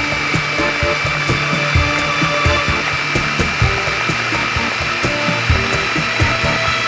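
Small electric food chopper running, its motor whining steadily as it blends a creamy liquid in the plastic jar, with frequent small knocks and rattles.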